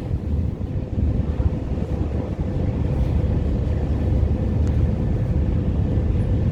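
Steady low rumble of a ship's engines, with a faint steady hum over it.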